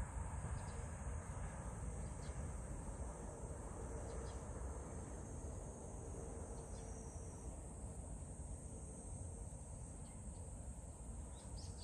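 Steady high-pitched drone of a summer insect chorus, over a faint low rumble.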